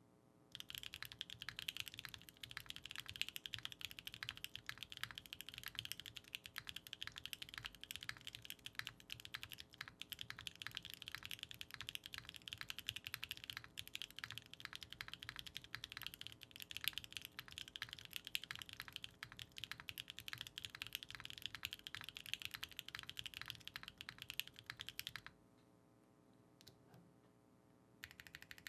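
Fast continuous typing on a Neo 65 mechanical keyboard with a carbon fibre plate, BSUN Strawberry Shortcake tactile switches and Keykobo Helleborus keycaps. The typing stops about 25 seconds in and starts again just before the end.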